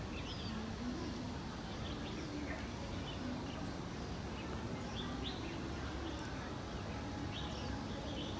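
Small birds chirping in short, scattered calls over a steady background noise, with faint distant voices.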